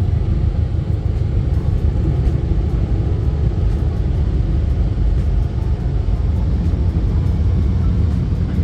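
Automatic car-wash air dryers blowing over the car, heard from inside the cabin as a loud, steady rumble.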